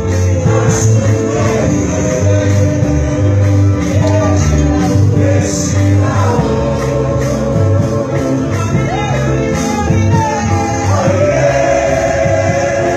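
Live gospel song sung by a choir in a Ghanaian language, over a band accompaniment with a deep bass.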